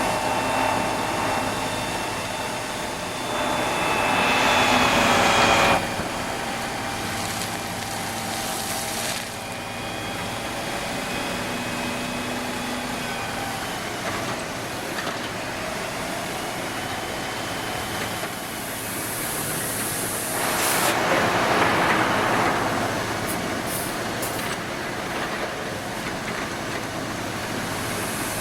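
Heavy machinery running with a steady engine drone and held whining tones. Twice it is overlaid by a loud hiss lasting a few seconds, once a few seconds in and again about two thirds of the way through.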